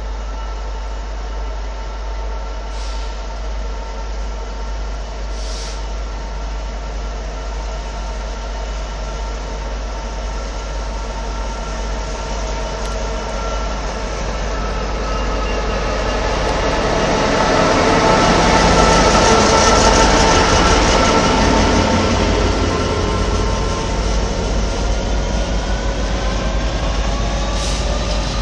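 Class 66 diesel-electric locomotive, with its two-stroke V12 engine, running at the platform. The engine and traction sound build to their loudest about two-thirds of the way through, and a whine rises in pitch near the end.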